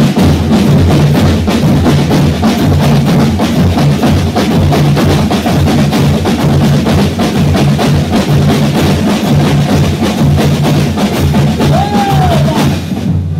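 Folia de Reis band playing: several snare drums and a bass drum beating a fast, dense rhythm under an accordion's sustained chords. The playing stops shortly before the end.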